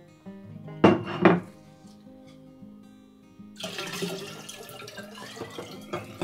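Home-made apple vinegar poured from a glass bowl through a funnel into a glass jar: a steady splashing pour begins about three and a half seconds in. Two loud knocks come about a second in, and background music plays throughout.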